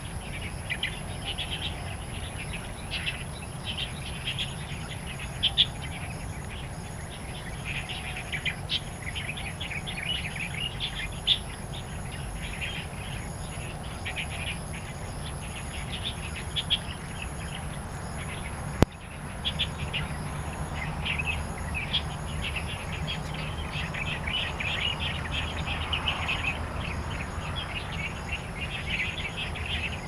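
Wild songbirds chirping and chattering in quick, overlapping calls, over a steady high insect whine and a faint insect chirp repeating at an even pace. A single sharp click about two-thirds through.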